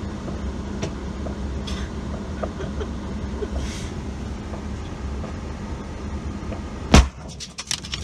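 Car engine idling with a steady low hum, heard from inside the cabin, with a few faint distant firework pops. About seven seconds in, a single loud bang as a microwave oven is blown apart, followed by brief crackling.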